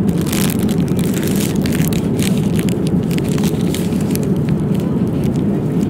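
Plastic food wrapping crinkling and crackling in irregular bursts as it is handled, over the steady low drone of a Boeing 787-9 airliner cabin in flight.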